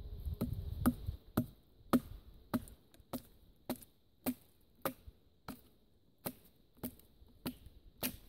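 Wooden baton striking the spine of a bushcraft knife, driving it down through an upright stick to split it (batoning). About fourteen evenly spaced knocks, a little under two a second.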